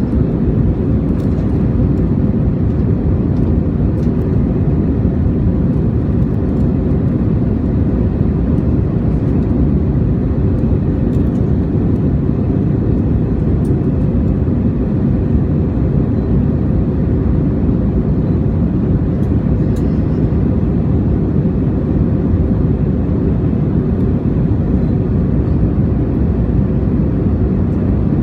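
Steady cabin noise of an Airbus A321 airliner in flight: an even low rumble of engines and airflow with a faint steady hum.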